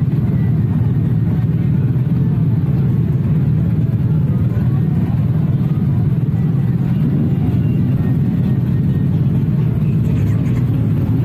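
A motorcycle on the move at a steady speed: its engine running under a constant, dense rush of noise.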